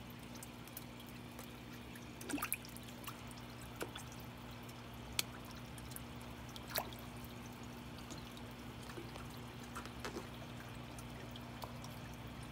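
Pond fish taking food at the water's surface: scattered sharp little splashes and slurps, about half a dozen spread out with pauses between, over a steady low hum.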